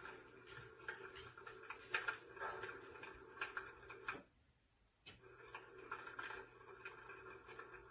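An electric fireplace insert's built-in crackling-fire sound effect: irregular soft crackles and pops over a steady low hum. The sound cuts out briefly about four seconds in, then resumes with a pop.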